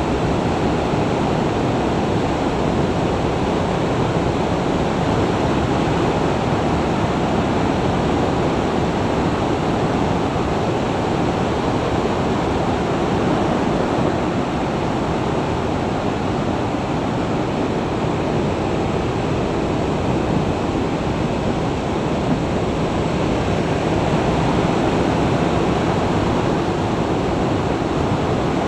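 Steady rush of wind on an action camera's microphone from a motorcycle riding at about 55 mph, with the road noise blended into it.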